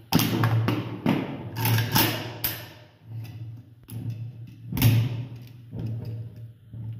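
Metal clicks, knocks and clatter of an AKS-74U being stripped by hand: the magazine is unlatched and set down, and parts are handled, with a sharp knock about five seconds in. A low steady hum runs underneath.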